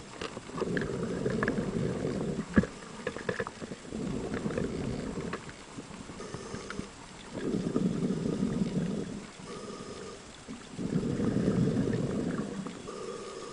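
Scuba diver breathing through a regulator underwater: four bubbling exhalations, each about two seconds long, roughly every three and a half seconds, with quieter pauses for inhaling between.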